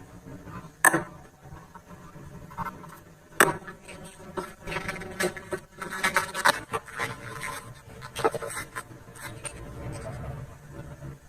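Hand work on hard parts: a few sharp clicks or knocks, with a stretch of scraping and rubbing in the middle.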